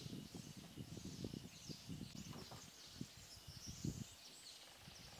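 Faint outdoor bird ambience: many small birds chirping in the background in short, quick falling notes, over soft irregular low knocks and rumble.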